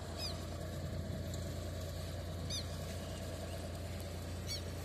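Tractor engine running steadily while it pulls a sweet potato planter through the soil. Three short, high squeaks come about two seconds apart.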